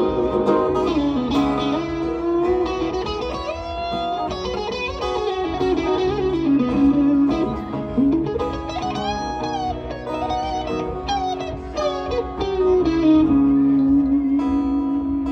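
Electric guitar playing a lead melody full of bent and sliding notes over acoustic guitar chords: an instrumental guitar duo intro with no singing.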